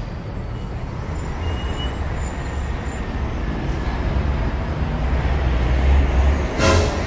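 A steady low rumble, and near the end one loud hit that rings on briefly.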